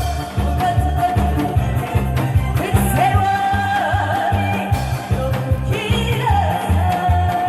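Loud amplified live music: a voice sings long, wavering held notes over a backing track with a pulsing bass beat.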